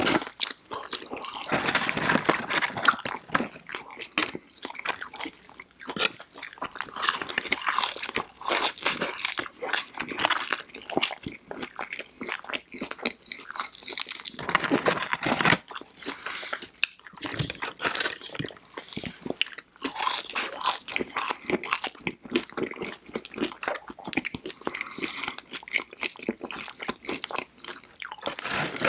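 Close-miked eating sounds: crisp bites and chewing of fried breaded chicken fingers, crinkle-cut fries and toast, in dense, irregular crunches with louder bursts every few seconds.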